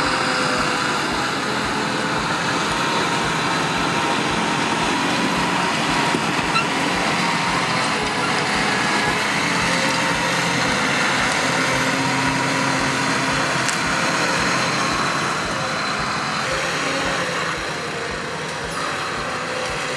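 Engine running steadily, a little quieter for the last couple of seconds.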